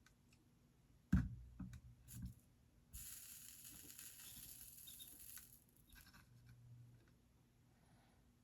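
Quiet soldering work on a wire connector: a few light clicks and knocks of parts being handled, then a soft hiss lasting about two and a half seconds as flux sizzles under the soldering iron.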